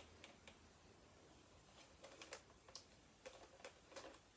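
Faint, irregular small clicks and rustles of hands fitting a wig onto a ball-jointed doll's head, a handful of light ticks spread across the few seconds.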